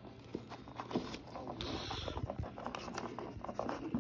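Hands handling toy packaging: scattered light clicks and taps with cardboard and paper rustling, most plainly a short rustle a little under halfway through.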